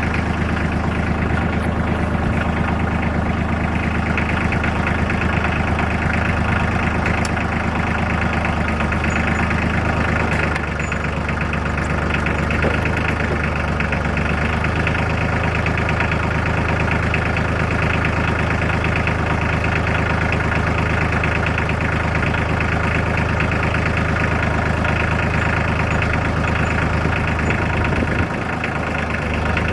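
Tractor engine running steadily at a low, even speed, its note shifting slightly about ten seconds in and dipping briefly near the end.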